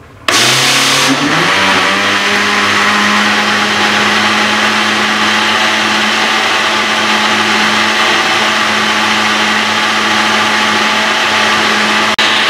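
Electric countertop blender switched on, its motor spinning up over the first second or so and then running steadily at full speed, churning a thin semolina batter in the jar. The sound breaks off for a moment near the end.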